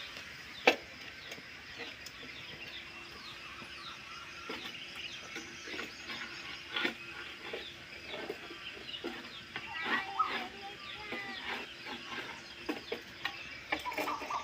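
Chickens clucking among many small birds chirping, with one sharp click less than a second in.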